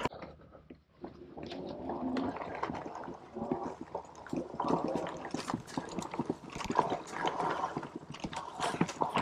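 Fat-tire electric mountain bike rolling over a dirt trail: a steady rumble from the tyres and frame with frequent clicks and rattles.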